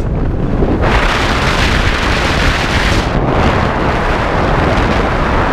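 Wind buffeting the microphone of a camera mounted on the outside of a moving car, over road noise. A dense rushing roar swells about a second in and dips briefly near the middle.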